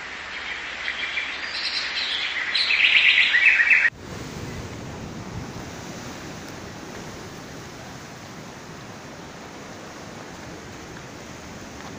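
Birds chirping in a dense, growing chorus that cuts off abruptly about four seconds in. After that comes a steady wash of sea surf and wind against a rocky shoreline.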